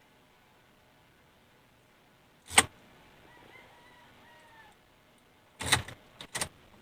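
A single sharp knock about two and a half seconds in, then a quick cluster of three or four sharp clicks near the end, over quiet.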